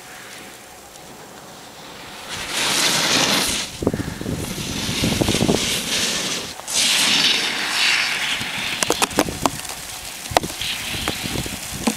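Snowboard edge scraping across packed snow in a series of carved turns, each turn a swelling hiss, the loudest as the rider passes close about six seconds in. A few sharp clicks follow near the end, with wind on the microphone.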